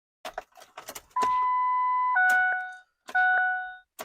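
A run of light clicks, then a steady electronic beep lasting about a second, followed by chime dings that repeat about once a second, each dying away, with a few more clicks between them. This is typical of a truck's dashboard warning chime as the key is worked in the ignition.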